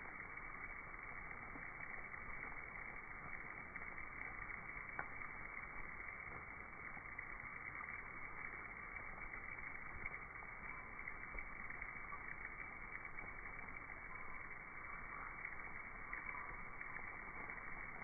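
Steady rushing whir of a huge swarm of Mexican free-tailed bats flying out of the cave, with many faint ticks and chirps scattered through it. The audio is slowed down with the slow-motion footage, so it sounds low and muffled.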